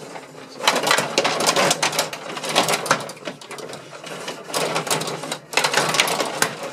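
Gretzky rod table hockey game in play: rods being pushed and twisted rattle, and plastic players and the puck clack together in a fast clatter. It comes in two busy flurries, one starting about half a second in and another a little after the middle, with a quieter patch between.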